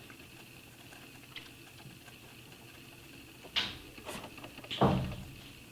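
Two brief knocks, a little over a second apart, of items being handled on a work surface while rhinestoning a hat, the second louder and heavier, over a faint steady high-pitched hum.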